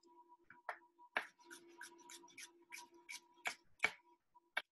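Kitchen knife slicing small sweet peppers into thin strips on a cutting board: a quick series of sharp taps of the blade on the board, about three a second, with a last tap near the end.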